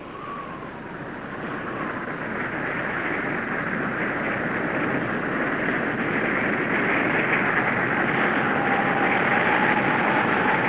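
Roar of rushing wind from a tornado: a steady rushing noise that grows gradually louder.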